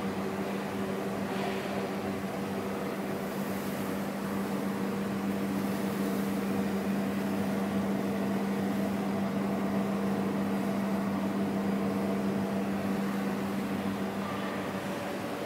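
A 1000 kVA diesel generator set, driven by a Shangchai SC33W1150D2 turbocharged V-type diesel engine, running at steady speed. It gives a constant mechanical hum with a strong low tone, which eases slightly near the end.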